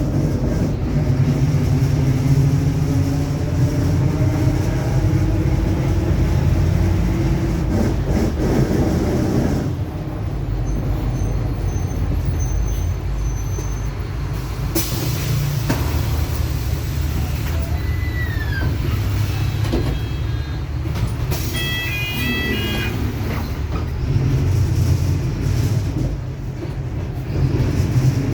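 Mercedes-Benz OF-1721 city bus under way: diesel drivetrain running with the differential droning, a whine that rises slowly in pitch for about ten seconds as the bus gathers speed, then falls away. Two short hisses and a few brief beeps come in the second half.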